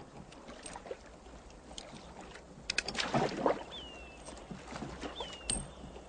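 Oars dipping and splashing in river water as a raft is rowed, with a louder wash of water about three seconds in. Scattered small clicks and two short, high, falling chirps sound over it.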